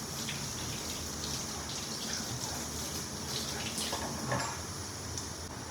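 Water running steadily from a kitchen tap, with a few short, faint knocks.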